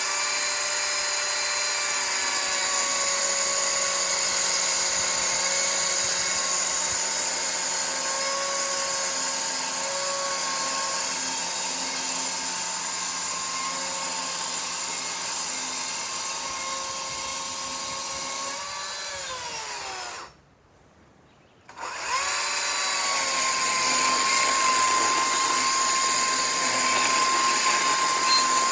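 Battery-powered chainsaw ripping lengthwise down the middle of a wooden utility-pole board, its motor whining steadily. About 19 seconds in the whine falls in pitch and stops; after a short pause the saw starts again and cuts on.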